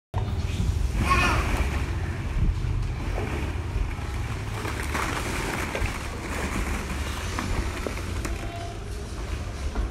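A steady low rumble with the light clatter of plastic ball-pit balls shifting as a toddler crawls through them, and a brief child's voice about a second in.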